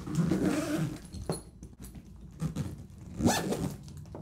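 Zipper on a leather alto saxophone case being pulled closed, in two stretches: a longer one at the start and a short, loud one a little after three seconds, with handling noise of the case between.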